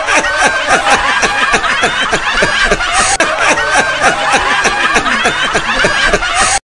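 Loud, rapid laughter running without a break, in quick falling 'ha' strokes, cutting off suddenly near the end.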